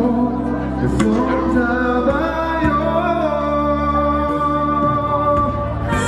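Male and female voices singing a song live into handheld microphones, holding sustained notes in harmony over a steady low bass line.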